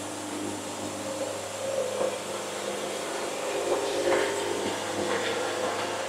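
Wood-Mizer band sawmill running: a steady mechanical hum, with whirring that swells and changes from about two seconds in as the head moves.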